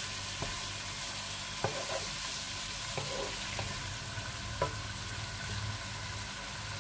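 Oil sizzling in a cooking pot as chopped ginger fries, a steady hiss with a few light clinks of the stirring spoon against the pot.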